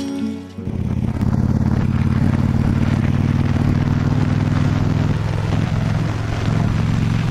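Yamaha XVS650 V-Star's air-cooled V-twin engine running steadily as the motorcycle cruises along the road, with road and wind noise. It cuts in abruptly about half a second in.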